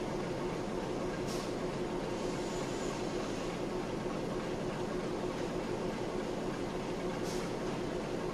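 Diesel train engine running steadily close by, heard from the coach behind the locomotive, with two short hisses, one about a second in and one near the end.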